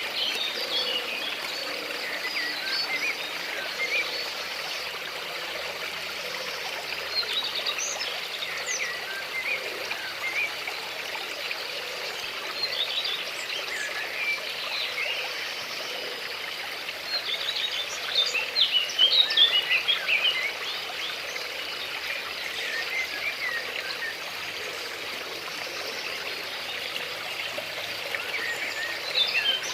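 Water running in a stream under many birds chirping, with short high calls overlapping, busiest about two-thirds of the way through.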